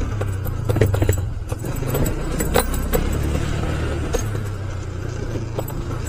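Motorcycle running at low speed, its engine a steady low hum, with irregular clinks and rattles as it jolts over a broken, muddy road.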